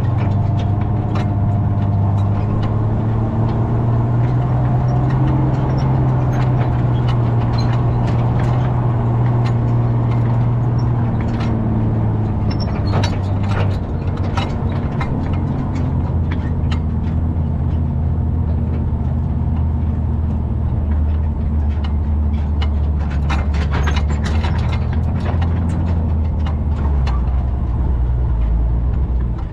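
M37 military truck's flathead inline-six engine running as the wrecker drives slowly over rough ground, its note settling lower about halfway through. Frequent clanks and rattles from the truck body and the wrecker's hanging chains and sling.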